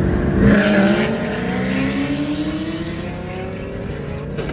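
Car engines at full throttle in a highway roll race, heard from inside a following car's cabin. The pitch climbs steadily through one gear, with a shift about half a second in and another near the end.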